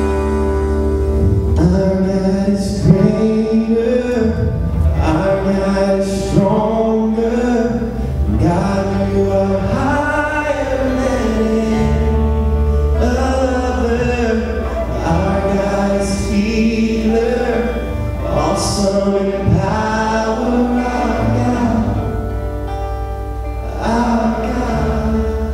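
A live praise-and-worship band playing a song, with a male lead voice singing over acoustic guitars, bass and drums. The singing comes in about a second and a half in, after a short instrumental lead-in.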